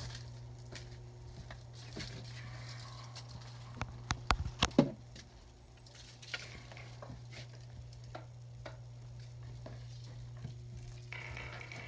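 Footsteps and scattered knocks and taps as someone walks through a doorway, with a cluster of sharp knocks about four seconds in, over a steady low hum.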